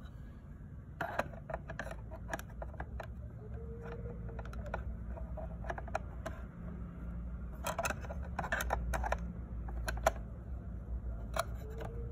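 Hard plastic parts of a Peppa Pig toy house playset clicking and knocking as its hinged panels are handled and moved, with bursts of clicks about a second in and again around eight to ten seconds in.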